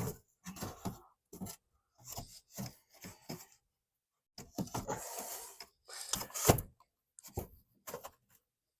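Irregular rubbing and scraping against wood, in short strokes with pauses between them, and a sharp knock about six and a half seconds in.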